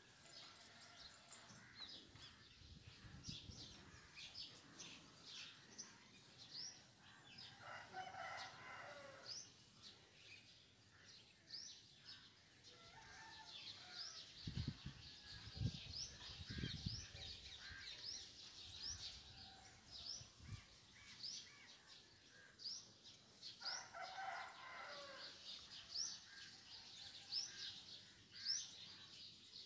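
Faint outdoor background of a small bird chirping over and over, about once a second, with a rooster crowing twice, about eight seconds in and again some sixteen seconds later. A few low rumbles come about halfway through.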